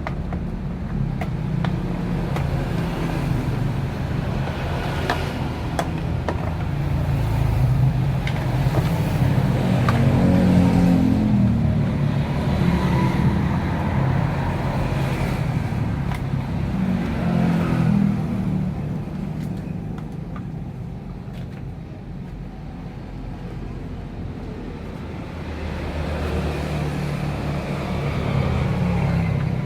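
Motor vehicle traffic running past, engine noise swelling and fading as vehicles go by, with a few sharp clicks.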